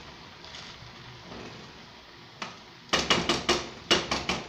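A spoon clinking and scraping against a metal pot as cooked rice is stirred: a single click, then from about three seconds in a quick run of sharp clinks, about four or five a second. Under it, a faint steady sizzle of tuna patties frying in oil.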